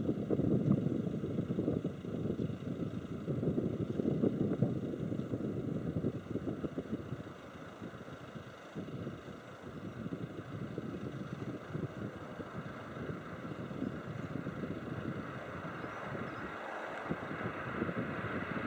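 Boeing 737-400's CFM56-3 jet engines at takeoff thrust, heard from a distance as an uneven low rumble, loudest in the first few seconds. The sound then steadies and grows brighter toward the end as the airliner lifts off and climbs.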